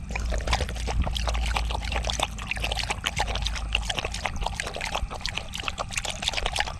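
Water splashing and trickling, a dense irregular patter of small splashes over a steady low rumble.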